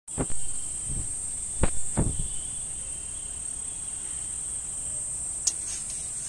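Steady high-pitched chirring of insects such as crickets, with four dull knocks in the first two seconds and a short click near the end.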